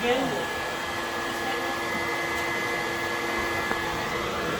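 Steady whirring of an electric cooling fan running, with a steady hum and a couple of constant tones over it.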